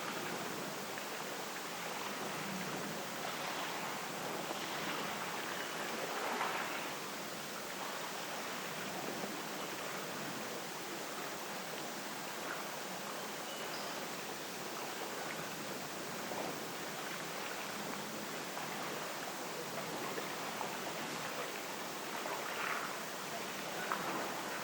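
Steady rushing of wind and sea water at a harbour edge, with a few brief louder swells in the wash.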